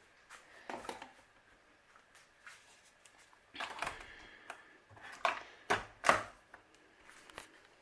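Clicks and knocks of things being handled in a kitchen while coffee is made: a handful of short, sharp knocks scattered through, bunched between about three and a half and six seconds in, the last the loudest.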